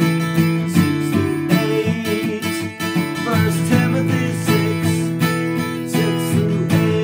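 Acoustic guitar strummed in a steady rhythm, capo on the second fret, with a man's voice singing along in places.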